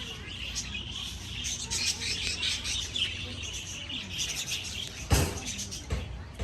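A flock of budgerigars chattering with dense, rapid high chirps, with a sharp knock about five seconds in.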